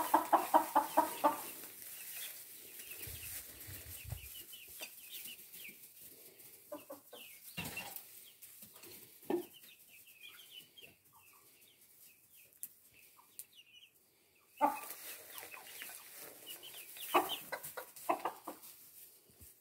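Chickens clucking in a coop: a quick run of calls at the start, then scattered soft clucks and short high calls, quieter in the middle and busier again near the end.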